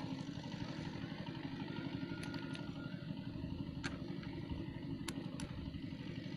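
A small engine running steadily with an even low rumble. A few sharp clicks or taps sound over it in the middle of the stretch.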